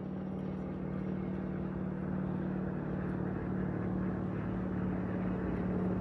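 A steady low mechanical hum, one unchanging pitch with overtones, slowly growing a little louder.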